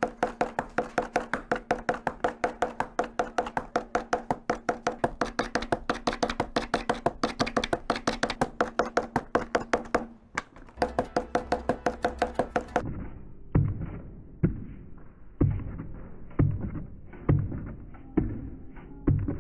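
Hanko seal stamped rapidly onto paper on a desk: a fast, even run of sharp knocks about five a second, with a short break about ten seconds in. About thirteen seconds in, the sound turns duller and deeper, with heavy thumps about once a second.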